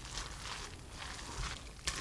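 Silicone spatula stirring a wet mixture of grated potato, egg and flour in a glass bowl: repeated squelching strokes, about two a second, with a sharp click near the end.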